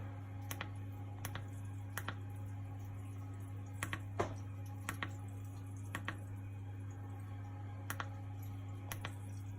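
Button clicks on a Nibe Fighter heat pump's control panel as its menu is worked through, coming singly and in pairs at irregular intervals, over a steady low hum.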